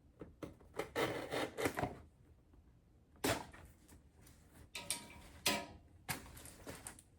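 Packaging being opened and handled by hand: a string of short rustling and scraping bursts, about five, with quieter gaps between them.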